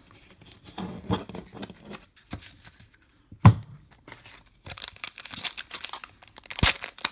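Cards being handled with papery rustles, a single thump about three and a half seconds in, then a foil trading-card pack wrapper being torn open with crinkling.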